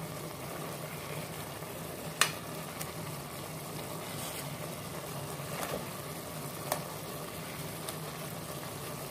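Chicken and broccoli stew simmering in a metal pot, a steady bubbling sizzle, while a metal ladle stirs it and clinks against the pot a few times, the loudest knock about two seconds in.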